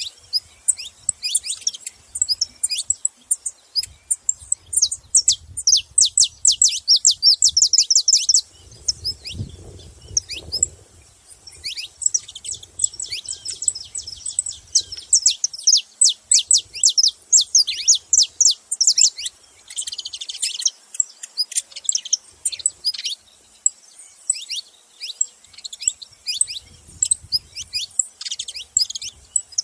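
Saffron finch (canário-da-terra) singing: long runs of rapid, high, sharp chirping notes, with a short lull around ten seconds in before the runs start again.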